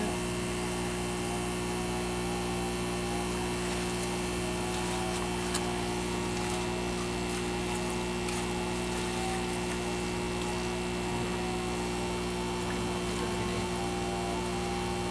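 Electric aquarium-style air pumps that aerate the fish tanks, humming steadily.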